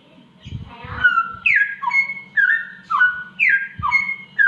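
Samyong bird whistling a run of slurred notes, each a sharp downward slide into a held tone, repeating about once a second, in its imitation of a cat's mating yowl. A few dull low thumps sound underneath.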